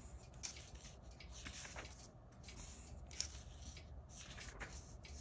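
Faint rustling of paper pages being turned in a planner, with a few soft brushes of the hand over the paper.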